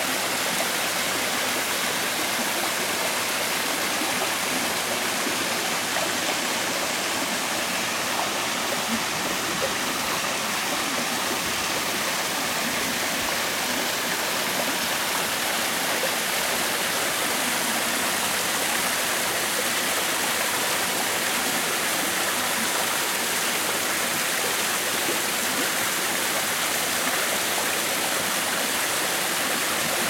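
Mountain stream babbling and splashing as small cascades pour over rocks into a shallow pool, a steady rush of water.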